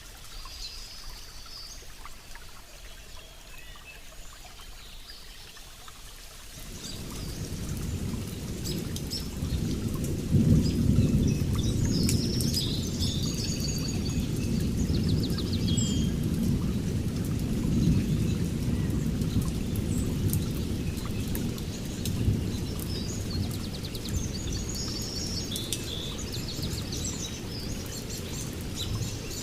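Birds chirping over light rain; about six seconds in a low rolling rumble of thunder sets in, swells to its loudest a few seconds later and keeps rolling on.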